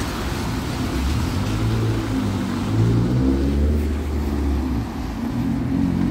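Diesel engine of a heavy road vehicle running close by, its note climbing and growing louder about halfway through as it pulls away, then settling, over general traffic noise.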